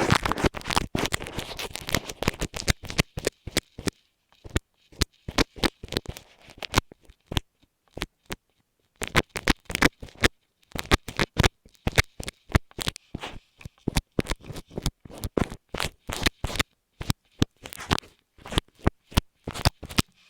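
Close-up scratching and tapping right on an earphone microphone. A dense run of crackling scrapes fills the first few seconds, then scattered sharp clicks and scratches come in quick clusters with short pauses between.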